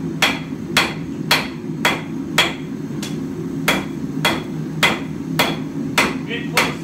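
Blacksmith's hand hammer striking hot mild steel bar on an anvil, drawing out a taper, at about two blows a second with a short pause about three seconds in. A steady low hum from the lit gas forge runs underneath.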